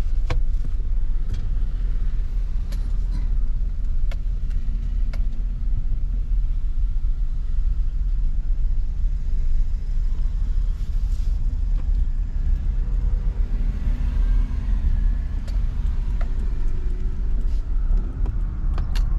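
Car running, heard from inside the cabin: a steady low engine and road rumble, with a few light clicks and a faint shifting engine note in the second half.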